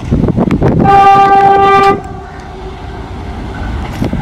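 Indian Railways diesel locomotive sounding its horn: one steady blast lasting about a second, which starts about a second in, over the low rumble of the passing train.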